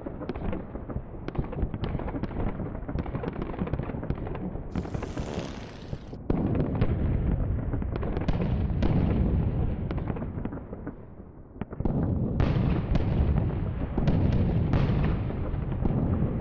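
Recreated battle sound effects: rapid gunfire cracks and impacts over a heavy, continuous rumble of explosions. The din jumps louder about six seconds in and dips briefly just before it surges again near the end.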